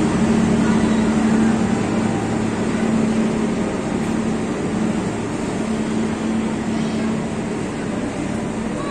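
Passenger train rolling slowly past: a steady rumble of carriages on the rails with a constant hum, gradually getting quieter.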